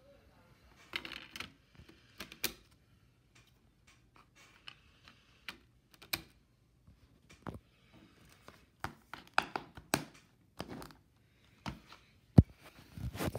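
Scattered clicks and light plastic knocks of a DVD case being handled while a disc is pressed off its centre hub, with one sharp snap near the end.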